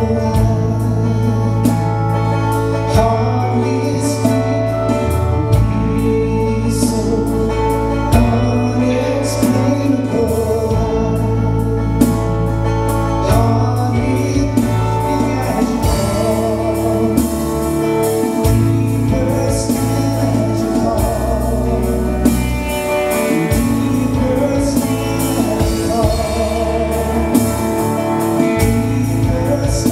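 A live praise band playing a worship song: strummed acoustic guitars, electric guitar, bass guitar and a drum kit, with men singing over them.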